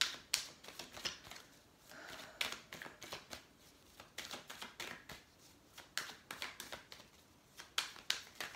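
Tarot deck being shuffled overhand by hand: a run of quick card clicks and slaps in irregular bursts, several a second.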